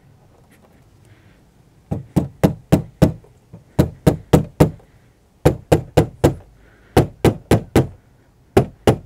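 Rubber mallet tapping a new plastic window sweep (outer belt weatherstrip) down onto a GM Suburban's rear door, seating it on the door's edge. Sharp knocks start about two seconds in, in quick runs of four or five, about four a second, with short pauses between runs.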